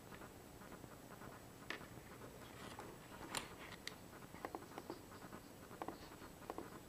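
Faint, irregular small clicks and taps of handling, a few at a time, over low room hiss.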